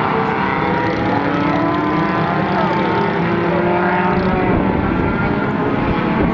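A field of mini stock race cars running at racing speed, several engines sounding at once with their pitches sliding up and down as the cars accelerate, shift and pass.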